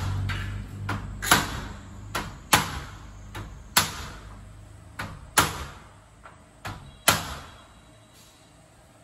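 Sharp knocks of door and sash fitting work, about eleven of them, mostly in close pairs, each ringing briefly, over about seven seconds. A low machine hum fades out at the start.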